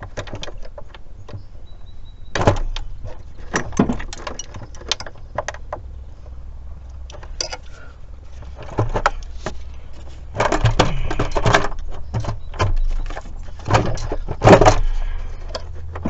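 Irregular clinks and clatters of metal hand tools and engine parts being handled, with a few louder knocks, the loudest near the end, over a steady low rumble.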